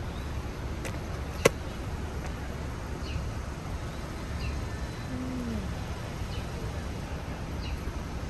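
Outdoor background with a steady low rumble and faint, short high bird chirps every second or so. A single sharp click comes about a second and a half in. About five seconds in there is one short, low cooing call that falls in pitch.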